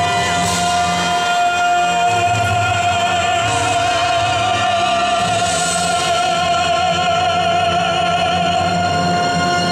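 Program music for a synchronized skating routine: a long sung note held throughout, with vibrato, over sustained accompanying chords.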